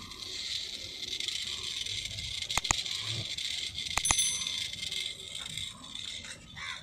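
Steady faint whirr of the solar robot kit's small motor and plastic gears spinning the wheels. Partway through, a subscribe-button sound effect: a pair of clicks, then another pair about four seconds in with a short bell ding.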